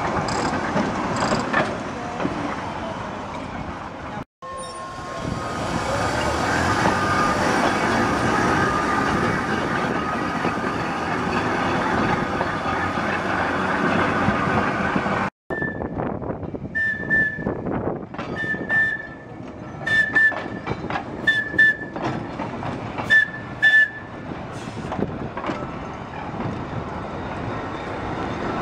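Vintage Manx Electric Railway tramcars moving at low speed during shunting: a steady rumble and rattle of steel wheels on rail that breaks off abruptly twice. In the last part comes a string of about eight short, high-pitched squeals.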